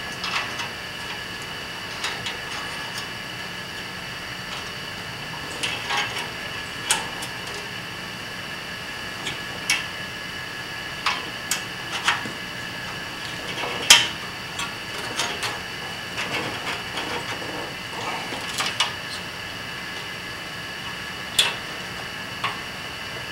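Small metal parts being handled: a steel pin and a C-clamp being fitted on a steel-tube door frame. They give scattered sharp clicks and taps, the loudest about halfway through, over a steady high hum.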